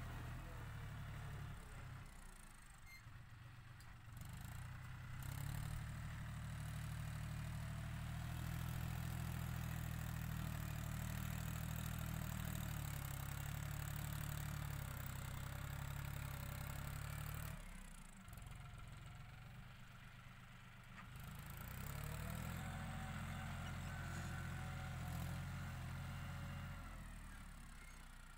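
John Deere 5045 tractor's three-cylinder diesel engine running as the tractor works a front dozer blade through loose soil. It pulls louder twice, for a long stretch from about 5 seconds in and again for several seconds past the 20-second mark, and drops back in between as the load comes off.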